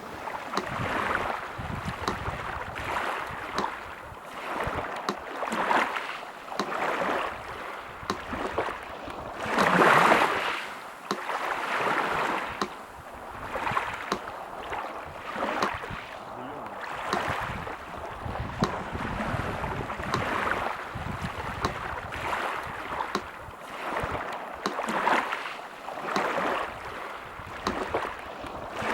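Sea surf washing ashore in repeated swells, one larger wave about ten seconds in, with a faint, regular metronome tick over it.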